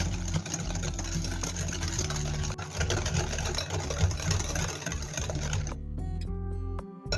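Small electric kitchen motor, most likely a hand mixer beating the batter, running steadily with a low hum and cutting off about six seconds in, followed by a few light clicks.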